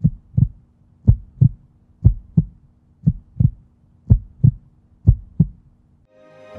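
Heartbeat sound effect: six double lub-dub thumps, about one a second, over a faint steady low hum. Music starts to fade in near the end.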